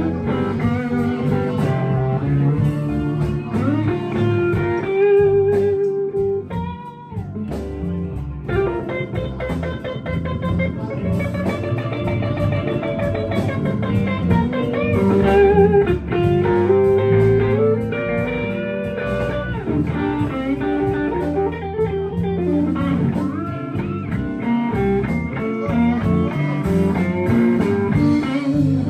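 Blues band playing an instrumental break: a lead guitar solos with bent, wavering notes over bass and drums.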